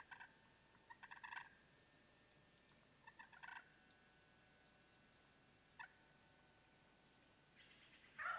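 Merriam's wild turkey gobbler gobbling: several short calls a second or two apart, then a louder, longer rolling gobble near the end.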